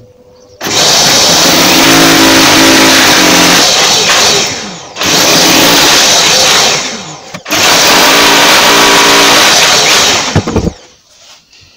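Electric drill with a 6 mm masonry bit boring into a plastered brick wall, in three runs of a few seconds each: three plug holes drilled in turn, with short pauses between.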